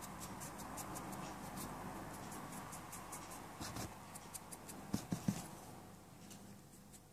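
Faint, soft scratching of a fluffy brush working acrylic powder into the tacky layer of a nail tip, with small ticks and three light taps about five seconds in.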